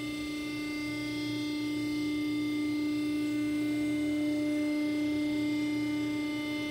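Hydraulic power unit of a PTR 3400HD vertical cardboard baler, a 10 hp three-phase WEG electric motor driving the hydraulic pump, running with a steady whining hum.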